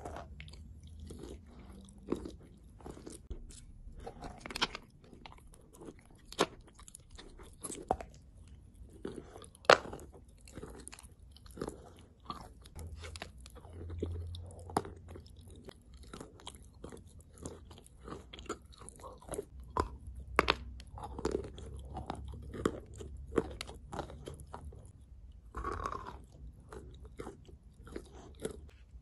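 Biting and chewing a lump of chalk coated in clay: many irregular sharp crunches and crackles as the chalk breaks between the teeth.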